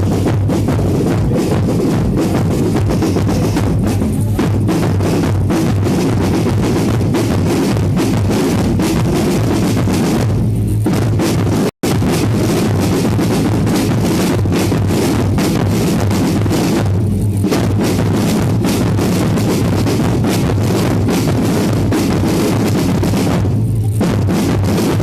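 A live band playing loud music with drums prominent, bass drum and snare over a steady, full sound. The sound cuts out for a split second about halfway through.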